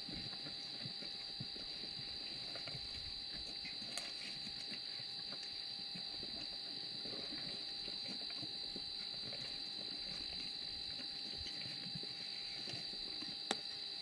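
Lions feeding on a warthog carcass: irregular low crunching and tearing over a steady high insect drone, with one sharp click near the end.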